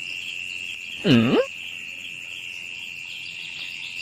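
Steady high insect trilling, like crickets. About a second in comes a brief loud voice-like call whose pitch dips and then rises.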